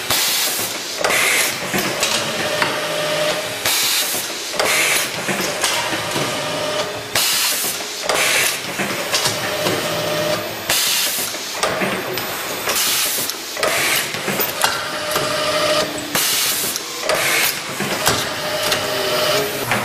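An automatic screw-assembly machine running through its cycles: sharp air hisses from its pneumatics come every few seconds, with short stretches of steady motor whine between them.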